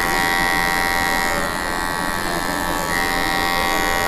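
Small electric hair trimmer buzzing steadily as it cuts and blends short hair at the back of the head, its note shifting a little partway through as it works through the hair.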